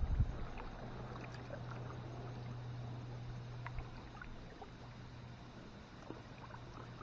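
Kayak paddling on calm water: small splashes and drips from the paddle, with a dull knock or two right at the start. A low steady hum runs underneath.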